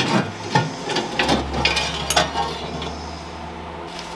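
Light metallic clicks and knocks of an Allen key on the 6 mm hex grub screw that plugs the drain in the bottom of a Harrison M300 lathe's apron, as the screw is nipped tight. About four clicks come in the first two seconds, over a low hum.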